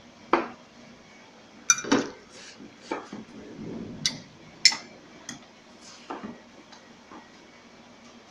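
Serving utensils knocking and clinking against a slow cooker's stoneware pot and a glass baking dish while chicken pieces are lifted out and set down: a run of short, sharp clinks spread over several seconds.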